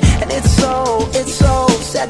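Instrumental pop music with a steady drum beat and a melody that slides between notes.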